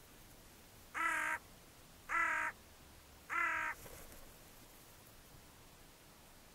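Hooded crow giving three harsh caws, evenly spaced about a second apart.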